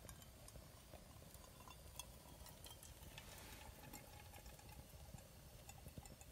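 Faint trickle of hot water poured from a camping kettle into a drip-coffee bag in a steel mug, stopping about four seconds in. Small scattered crackles from a wood fire in a box stove.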